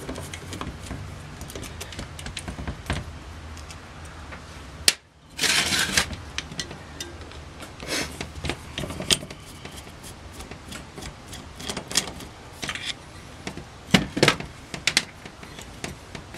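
Screwdriver turning out the screws that hold the throttle body to an Aisan two-barrel carburetor, with scattered light clicks and clatter of small metal parts on a metal work tray. A brief louder burst of noise comes about five seconds in.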